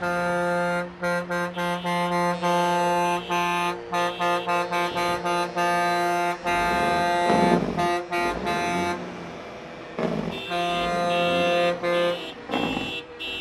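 Truck air horns sounding a steady multi-note chord, first in a run of short rapid blasts, then in longer held blasts. The engine noise of passing trucks rises between the blasts.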